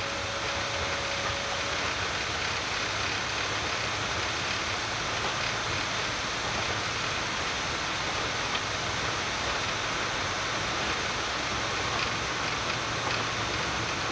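Boeing 787-9 flight deck during the high-speed takeoff roll at takeoff thrust: a steady, even rush of engine, airflow and runway rolling noise, with a few light knocks.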